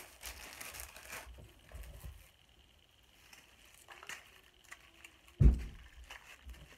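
Crinkling and rustling of a cracker packet being handled for about the first second, then quieter handling. A single loud thump about five and a half seconds in.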